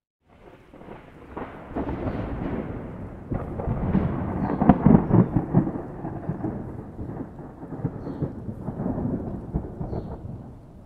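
A long roll of thunder. The rumble breaks suddenly out of silence, swells to a loud crackling peak about five seconds in, eases off, then swells again near the end before fading.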